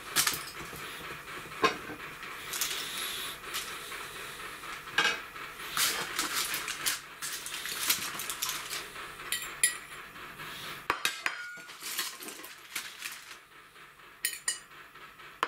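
Metal cutlery clinking and scraping on ceramic plates, with plates being picked up and set down: a run of irregular clinks and knocks that thins out in the last few seconds.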